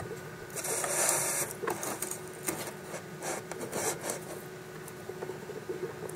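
Quail eggs being pushed by hand into a wire mesh incubator tray: light clicks and scrapes of the shells against the metal wire, with a burst of rustling about a second in. A steady faint hum runs underneath.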